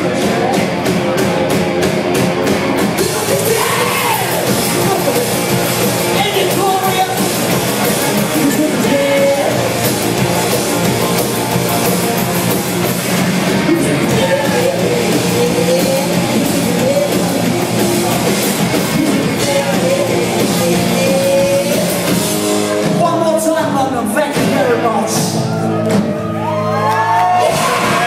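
Live rock band playing in a hall, heard from among the audience: electric guitars, drums and loud singing.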